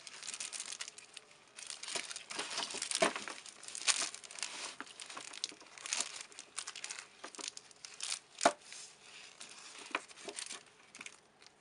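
Foil-wrapped chocolate squares on ribbons crinkling and rustling as they are handled, with irregular small clicks as the blocks knock together; one sharper click about three-quarters of the way through.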